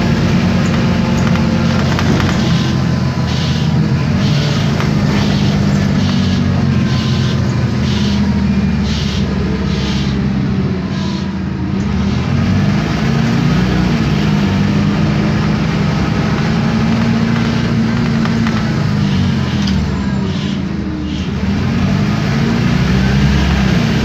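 Interior sound of an Isobus City 1200 city bus on the move: its MAN D0836 LOH diesel engine and ZF Ecomat automatic gearbox running, the pitch rising and falling as the bus accelerates, shifts and slows. A regular ticking about twice a second runs through two stretches, one lasting several seconds and a shorter one later.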